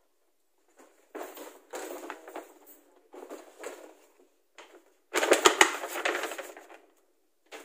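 Gift wrapping or packaging being handled, rustling and crinkling in several short bursts, with the loudest, longest bout about five seconds in, which also has a few dull knocks.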